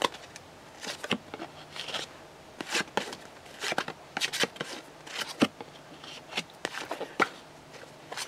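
A stack of 1990 Upper Deck Looney Tunes Comic Ball trading cards being flipped through by hand: card stock sliding and snapping in light, irregular clicks and rustles.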